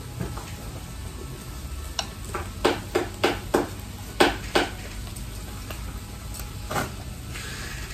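Metal tongs clacking and scraping against an electric grill plate, a quick run of about seven sharp clicks with one more a couple of seconds later, over the low sizzle of beef rolls cooking on the plate.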